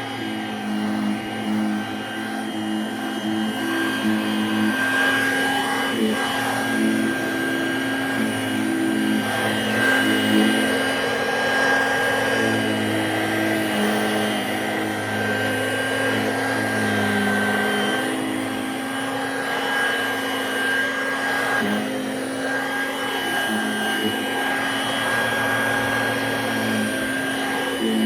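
Dirt Devil two-speed handheld vacuum running steadily while vacuuming a fabric chair, its motor pitch shifting now and then as the nozzle presses against the upholstery.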